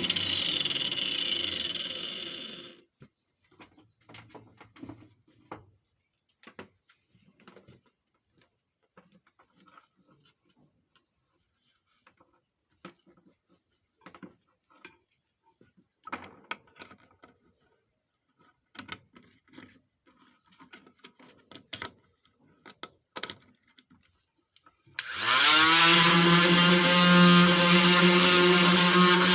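Electric sanding tool on wood running, then winding down and stopping in the first couple of seconds. Scattered light knocks and scrapes follow for about twenty seconds. Near the end the motor starts again, spins up and settles into a steady run.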